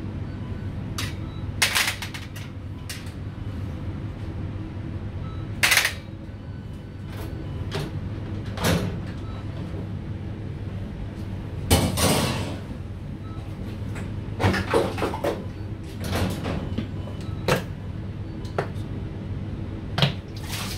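Stainless steel hood baffle filters clanking as they are handled and stacked on a metal rack: scattered sharp metal knocks, the loudest about twelve seconds in, over a steady low hum.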